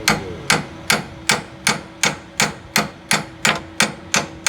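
A hammer striking metal in a steady rhythm, about three blows a second, each blow with a brief ring.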